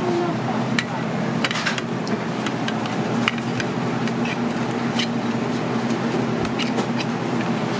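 Indistinct background chatter over a steady low hum, with scattered light clicks and taps from fluted metal cake tins being greased with a pastry brush.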